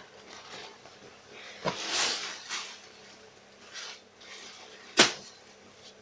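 Denim jeans being handled and turned over on a table: soft rustling swishes of the heavy fabric, with two sharp clicks, one about two seconds in and a louder one about five seconds in.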